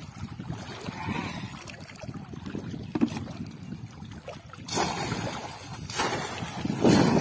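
Water sloshing as a person wades through shallow floodwater, then loud splashes about five, six and seven seconds in as a bamboo polo fish trap is plunged down into the water.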